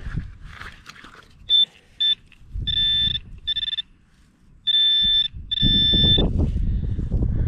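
A metal detector beeping in a single steady high pitch as it is passed over a target in a dug hole: two short beeps, then four longer ones. Dirt and hands rustle underneath the later beeps.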